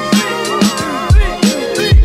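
Hip hop music track: deep bass hits that drop in pitch about every half second under a wavering vocal line.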